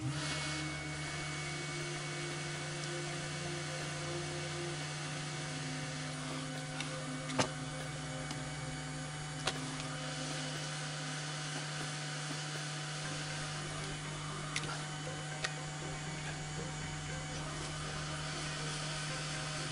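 Hot air rework station blowing hot air onto a laptop's graphics chip to reflow its solder: a steady hum under an even rush of air, with a few sharp ticks, the loudest about seven seconds in.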